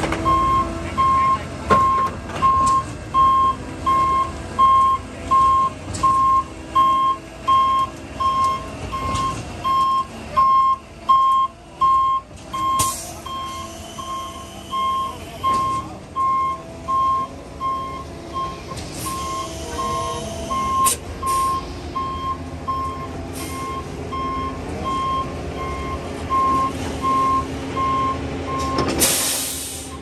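A concrete mixer truck's reversing beeper sounds a single steady tone about once a second over the truck's running diesel engine. There are short air hisses along the way, and a louder air-brake hiss near the end as the beeping stops.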